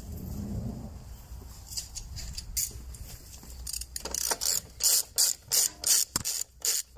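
Socket ratchet wrench clicking as it is swung back and forth to tighten a nut on a car's front strut tower. The clicking becomes steady and louder about four seconds in, in quick strokes about three a second.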